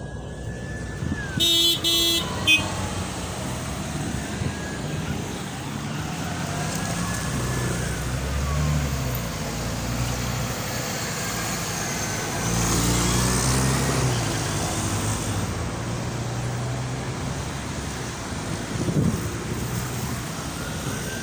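Road traffic: cars passing with a steady engine and tyre hum, two of them swelling louder as they go by. A car horn toots twice in quick succession about two seconds in.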